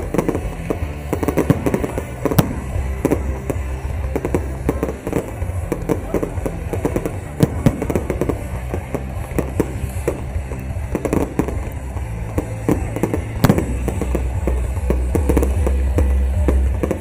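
A large aerial fireworks display: shells bursting and crackling in quick, irregular succession, with music playing underneath.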